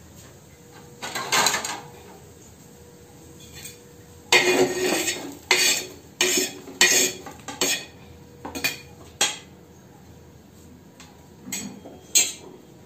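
Metal spatula scraping and clinking on a flat roti griddle (tava) as roasted green chillies are cleared off it: a string of short clatters, a couple about a second in and a busy run from about four to nine seconds in.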